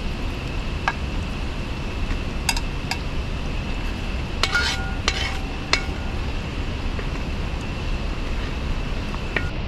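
Metal slotted ladle scraping and clinking against a large aluminium pot and a plate as fried chicken is dished out. A handful of sharp clinks, several coming close together around the middle with a brief ring, sit over a steady low background rumble.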